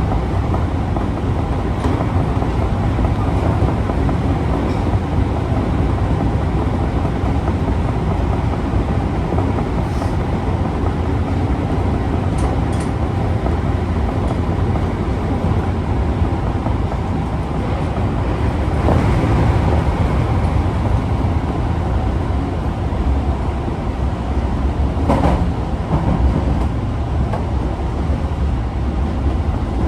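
Osaka Metro 22 series subway car 22962 running, a steady loud rumble of wheels on rail, with two sharp knocks, about 19 and 25 seconds in. This is the car the uploader singles out for an abnormal running noise.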